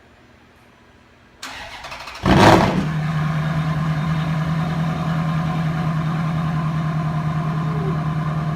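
Ferrari F430's 4.3-litre V8 cold-started: the starter cranks about a second and a half in, the engine catches about a second later with a loud flare, then settles into a steady idle. It breathes through TopSpeed headers and test pipes, with the catalytic converters removed, but keeps the stock valved muffler, and is very loud.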